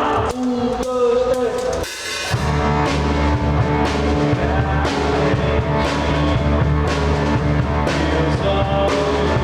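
Rock band playing live: electric guitar notes, then the full band with drum kit and bass comes in behind a cymbal crash about two seconds in.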